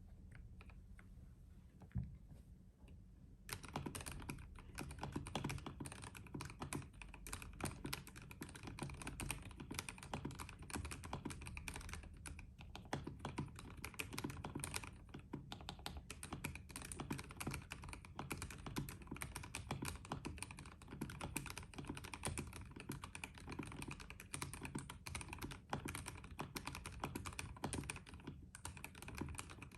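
Fast, continuous typing on a custom 60% mechanical keyboard with lubed Cherion frankenswitches (Gateron black bottom housing and spring, Cherry RGB top and stem) in a sandwich-mounted acrylic plate. After a lone keystroke, the typing starts a few seconds in as a dense stream of key clacks.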